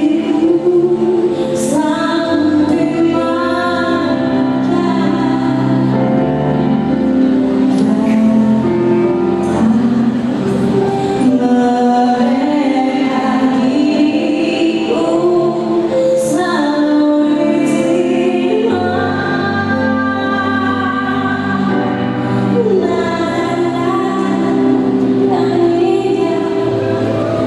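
A choir singing with instrumental accompaniment: long held notes moving over a steady bass line.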